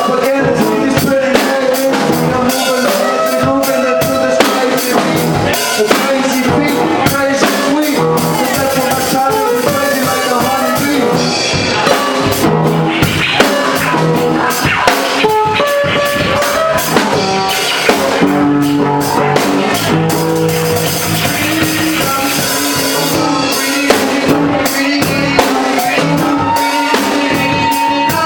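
A live rock band jamming: electric guitars over a drum kit keeping a steady beat.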